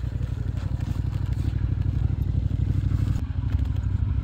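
Motorcycle engine idling: a low, steady rumble.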